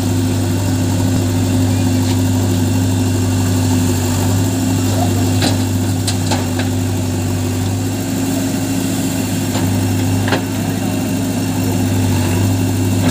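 JCB backhoe loader's diesel engine running steadily while it digs, with a few sharp knocks from about halfway through.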